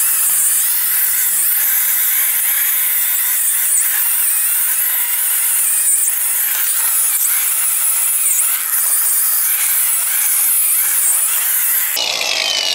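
Cordless angle grinder with a wire wheel scouring rust and scale off the hub face of a brake drum, a steady, high scraping whir. Near the end it is switched off and its whine falls as it spins down.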